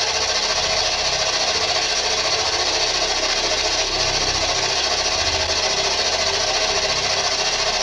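Ghost-hunting spirit box sweeping through radio frequencies: continuous hissing static with a fast, choppy stutter underneath, played loud enough for the investigators to listen for replies.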